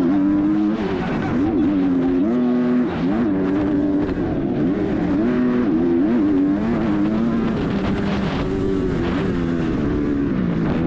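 A Kawasaki 250cc four-stroke motocross bike engine at race pace, close up. Its note climbs and drops again and again as the rider works the throttle and shifts gears through the straights and jumps.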